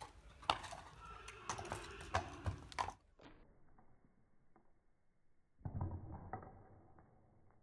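Hooves of an Irish Warmblood, shod on the front feet only, striking a concrete yard at a walk in an uneven clip-clop. The strikes are sharpest in the first three seconds and fainter after, with a brief low rumble near six seconds.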